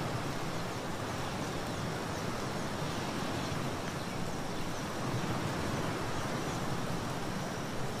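Small ocean waves lapping on a sandy beach: a steady wash of surf with no single break standing out.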